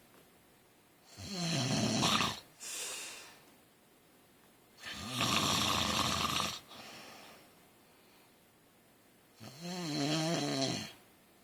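A man snoring in his sleep: three snores about four seconds apart, each a second or so long, the first followed by a softer breath out.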